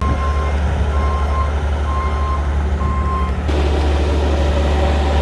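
Vehicle engine running with a loud low rumble while a high reversing alarm beeps four times, unevenly spaced. The beeping stops after about three and a half seconds, where the sound changes abruptly.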